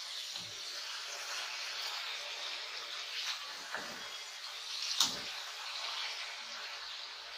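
Marinated fish slices sizzling in hot oil in a nonstick kadai, a steady hiss of deep-frying. Three light knocks, the sharpest about five seconds in, as a wooden spatula turns and presses the pieces.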